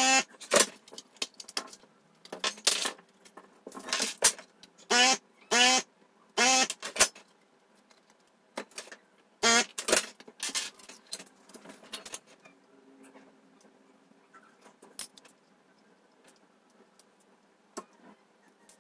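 Electric desoldering gun's vacuum pump, pulsed on in a series of short whining bursts over the first seven seconds as it sucks solder from circuit-board joints. Then sharp clicks and clatter as the circuit board is handled, followed by faint ticks.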